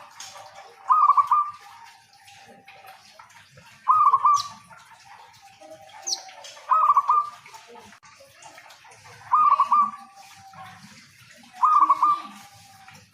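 Zebra dove (local perkutut) singing: five short trilled cooing phrases, about one every two and a half to three seconds, each trailing off in a softer lower note.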